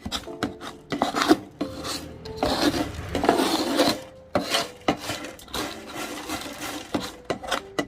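Rough scraping and rubbing with many sharp clicks, irregular and without a steady rhythm.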